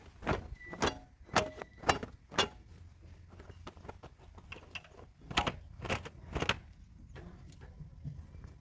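Sharp clicking knocks: five about half a second apart, then after a pause three more at the same pace.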